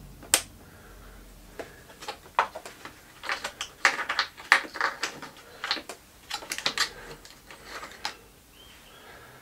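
Hard plastic side cover of a Honda CT125 clicking and knocking as it is pressed and worked into place by hand: one sharp click about half a second in, then a busy run of irregular light clicks and taps, thinning out near the end.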